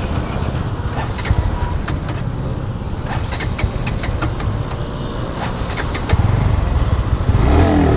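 Bajaj Pulsar NS160's single-cylinder engine being started on a tank that is nearly out of petrol, with a few scattered clicks. The sound grows louder about six seconds in as the engine catches.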